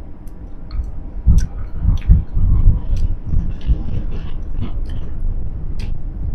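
Close-up chewing of a wad of bubble gum, with scattered wet mouth clicks and lip smacks, over a heavy low rumble.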